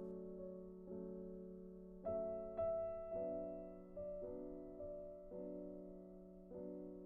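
Soft background piano music: sustained chords and single notes, a new one entering about every second.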